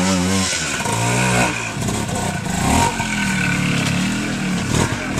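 Classic trials motorcycle engine revving up and down as the rider works the throttle at low speed, its note rising and falling several times.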